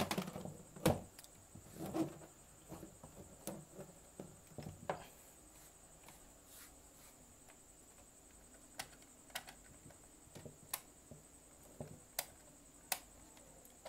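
Hands handling a laptop's plastic underside and working its battery release latches: scattered sharp clicks and knocks. They come in a cluster at first, then go quiet for a few seconds, then return as single clicks about a second apart near the end.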